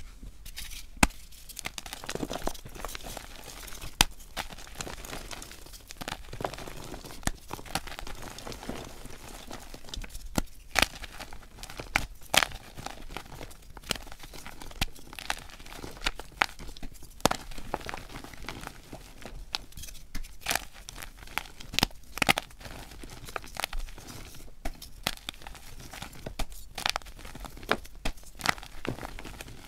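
Dyed gym chalk blocks crushed and crumbled by hand: a continuous crunching, crumbling noise broken by frequent sharp snaps as pieces break apart, played back at double speed.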